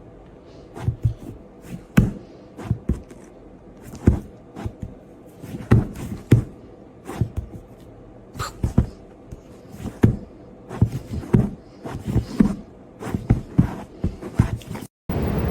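A series of irregular knocks and thuds, roughly one or two a second.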